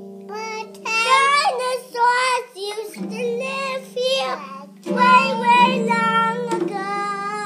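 A young child singing a song, with a child-size acoustic guitar strummed about three times, its chords ringing under the voice.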